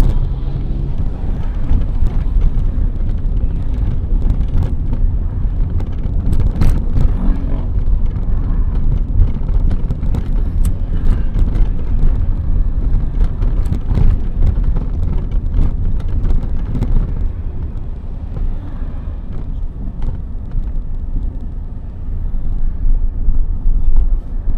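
Road traffic on a city street: a steady low rumble of passing cars, with a few short clicks along the way.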